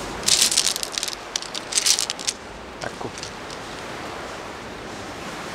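Loose flint pebbles clattering and crunching as a hand picks through the shingle for a small piece, in short bursts over the first two seconds. After that there is a steady rushing noise.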